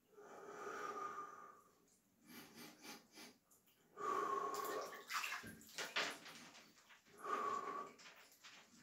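A man sitting in an ice bath breathes out hard against the cold three times, each a long breath out with a vocal tone to it. Water sloshes and splashes softly in the tub between the breaths.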